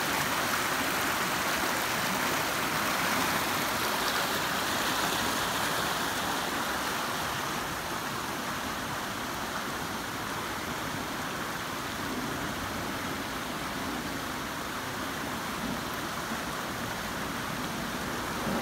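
Creek in flood: muddy floodwater rushing steadily over and around a submerged low concrete bridge. The sound is a little quieter after about seven seconds.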